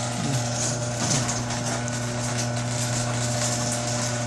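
Garage door opener running steadily as the door goes up, a constant motor hum with two short creaks, one near the start and one about a second in. The door moves without binding.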